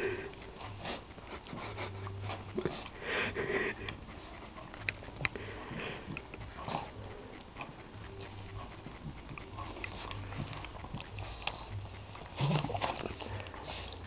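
Pug sniffing and snorting in short, irregular bursts with her face pushed into a fleece dog bed, louder about three seconds in and again near the end.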